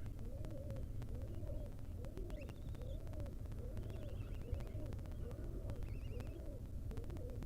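Low bird calls repeating about once a second in an even rhythm, with a few faint higher chirps, over a steady low hum.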